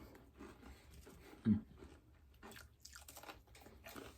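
Close-up crunching and chewing of crispy breakfast food, with sharp crackly bites clustered a little past halfway. A brief low murmur about a third of the way in is the loudest sound.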